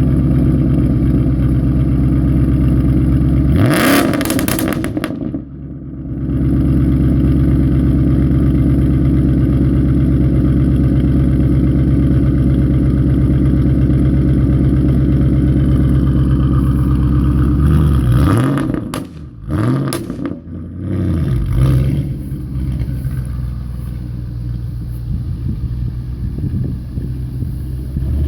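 Audi B6 S4's 4.2-litre V8 with a catless X-pipe exhaust idling steadily, revved sharply once a few seconds in, then blipped several times in quick succession about two-thirds of the way through before settling back to a quieter idle.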